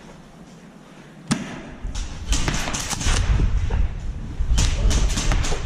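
Airsoft close-quarters play: a single sharp knock, then from about two seconds in a run of irregular sharp clicks and knocks over a heavy low rumble from the player's movement and gear on a head-worn camera.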